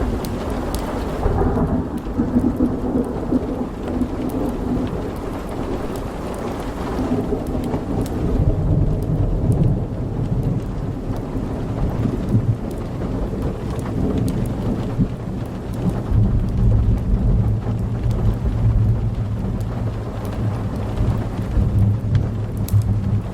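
Rolling thunder rumbling deep and long over steady rain, swelling and easing in waves. A few sharp crackles from a fireplace at the start and again near the end.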